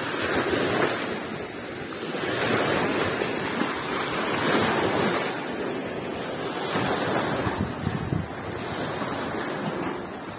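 Lake waves washing onto the beach, swelling and easing every couple of seconds, with wind on the microphone.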